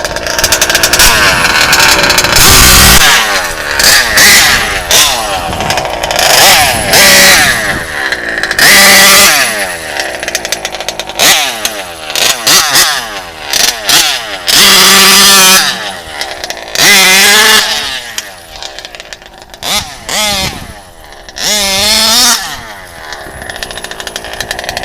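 RCMAX GT90 two-stroke petrol engine in an HPI Baja RC truck revving, its pitch climbing and falling back in repeated bursts of throttle every second or two.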